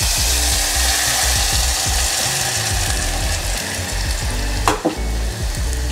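Smoking-hot mustard oil poured into a spiced gram-flour marinade, sizzling steadily and loudly, while a spoon stirs it through.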